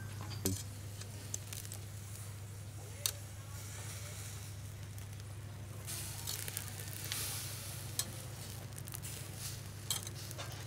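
Stuffed beef rolls sizzling on a wire grill rack over charcoal, with a few sharp clicks of metal tongs against the grate as the meat is turned.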